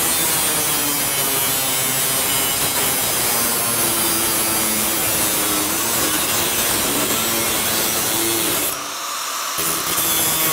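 Angle grinder fitted with a cut-off disc slicing through thin stainless steel sheet, the motor running at speed and the disc grinding harshly through the metal. The cutting noise drops for a moment about nine seconds in, then picks up again.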